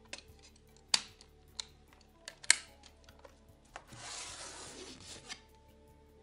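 Hasselblad 500C/M medium-format camera being handled: its waist-level finder hood folded shut in a few sharp metal clicks, the loudest about two and a half seconds in, then the metal dark slide rasping through the film magazine for about a second and a half.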